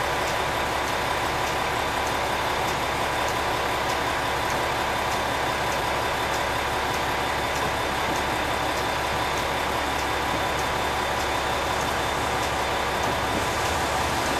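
KiHa 40 diesel railcar approaching, its engine running steadily, with a faint, regular ticking a little under twice a second.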